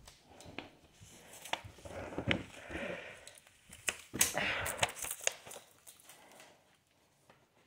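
Disposable shoe covers crinkling and rustling, with scattered light knocks of footsteps. The rustling is loudest in two stretches around the middle and dies away near the end.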